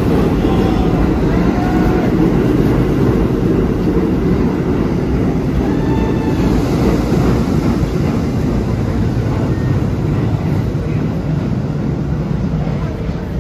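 R32 subway train pulling out of an underground station and running past at close range: a loud, steady rumble of wheels and motors on the track, easing off near the end as the last car leaves.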